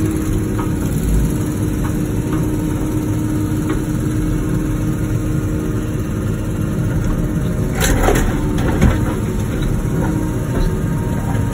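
Wacker Neuson ET145 excavator's diesel engine and hydraulics running steadily under work, with a short clatter about eight seconds in.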